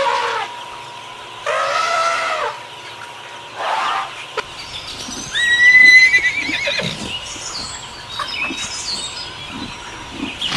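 Horse neighing several times, the loudest and longest call about five seconds in with a high, quavering pitch.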